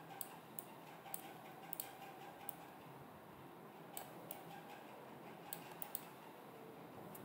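Computer mouse buttons clicking, about a dozen short, sharp clicks at irregular intervals, over a faint steady hum.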